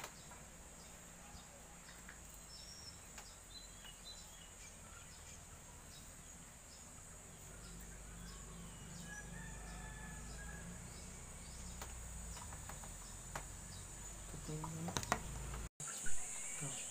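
Steady high-pitched insect drone, typical of crickets, with faint scattered bird chirps and a few light clicks. The drone grows louder after a brief dropout near the end.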